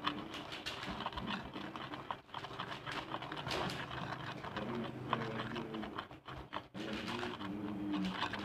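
Slime mixture being stirred by hand in a plastic bowl, making irregular soft clicks and scrapes, with short low pitched tones in the background.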